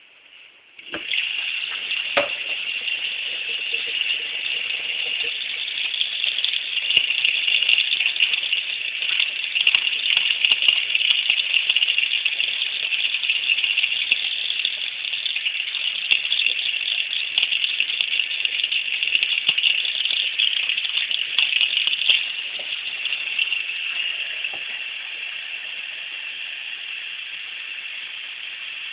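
A kitchen faucet turned on about a second in, water running from the tap and splashing into a stainless steel sink. The splashing turns softer and steadier for the last several seconds.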